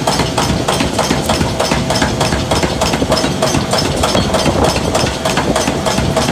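Rapid, even metal strikes, about five a second, each with a short ring, over a steady workshop din. This fits a blacksmith's hammer or a power hammer working metal. The strikes stop suddenly at the end.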